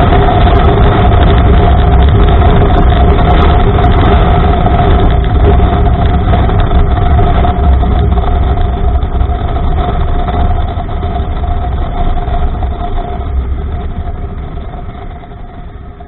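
Honda Africa Twin parallel-twin motorcycle riding along a gravel road: engine and tyre noise under heavy wind rumble on the microphone, with a few steady engine tones. The noise falls away over the last few seconds as the bike slows for a give-way junction.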